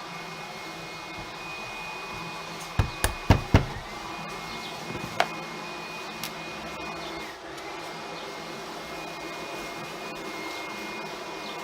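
Glazing beading being tapped into a window frame: four sharp knocks in quick succession about three seconds in, and one more about two seconds later, over a steady hum with a faint high whine.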